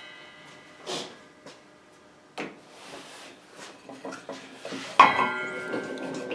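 Handling knocks of a wooden block and a metal miter gauge on a table saw's iron top. There are a few light knocks, then a louder metallic clank about five seconds in that rings briefly.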